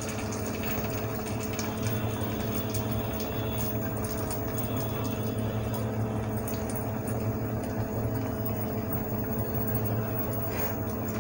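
Steady sizzle of poha-besan patties shallow-frying in oil in a kadhai on low heat, under a steady hum with two held tones.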